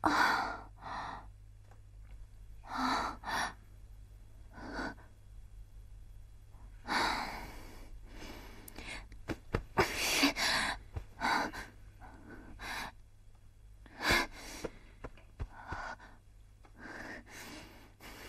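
A young woman's breathy gasps, sighs and groans, coming in short irregular bursts every second or two as she stirs and pushes herself up off the floor.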